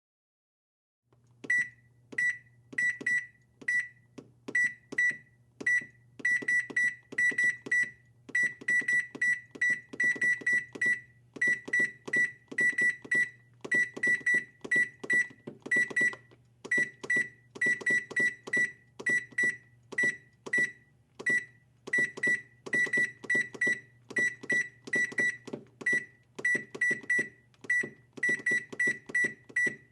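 Electronic keypad buttons being pressed, each press a short high beep with a click, in quick irregular runs of two to four, starting about a second in; a faint low hum sits underneath.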